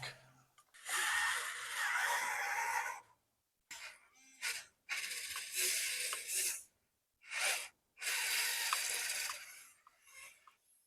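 Small electric gear motors of a 1/14 scale RC construction machine whirring in three runs of about two seconds each, with shorter whirs between them.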